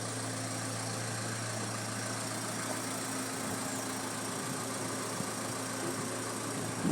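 Car engine running steadily, heard from inside the car's cabin as an even low hum.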